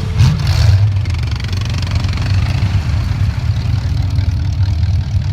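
A big mud truck's engine idling with a steady, deep rumble.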